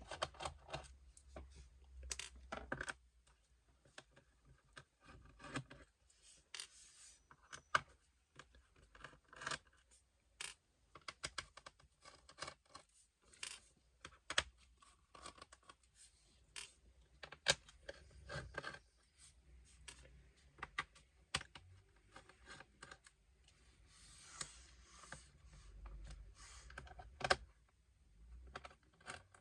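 Screwdriver backing out the screws of a Dell Inspiron 5570 laptop's plastic bottom panel: scattered light clicks, ticks and scrapes of the bit, screws and case, with a few sharper clicks standing out.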